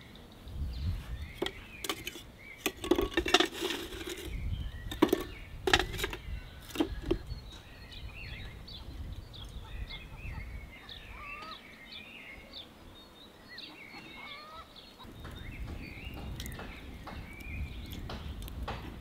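Birds chirping repeatedly, with a run of sharp knocks and clanks in the first several seconds from galvanized metal buckets being handled on a wooden bench.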